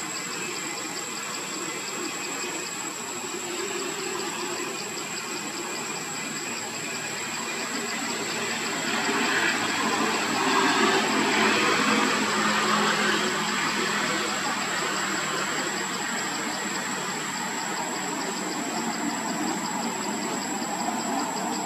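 Steady outdoor background noise with a continuous high-pitched whine and faint regular pulsing above it, swelling louder about halfway through and easing off again.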